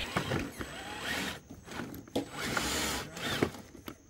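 Electric motor and geared drivetrain of a scale RC rock crawler whining in short bursts, rising and falling in pitch as it is throttled on and off over rock. A few sharp clicks and knocks from the tyres and chassis on the rocks.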